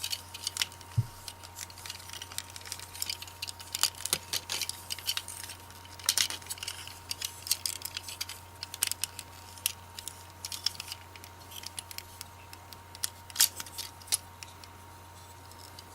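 Plastic parts of a Transformers action figure clicking and tapping as it is folded into its vehicle mode by hand: irregular small clicks throughout, over a steady low electrical hum.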